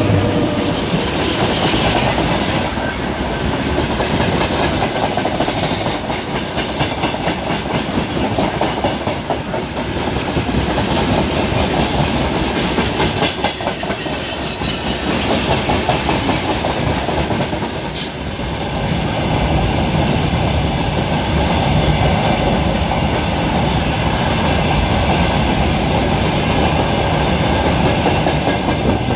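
Steel wheels of a freight train of open gondola wagons rumbling and clacking over rail joints as it passes close alongside, heard through an open carriage window. A single sharp clank cuts through a little past the middle.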